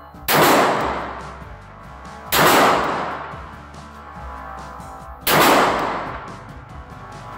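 Gen 4 Glock 17 9mm pistol fired three slow, aimed shots, about two and three seconds apart. Each shot rings on for about a second, echoing off the concrete of an indoor range.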